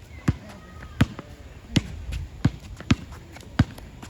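A basketball dribbled on a court: six sharp bounces, about one every two-thirds of a second.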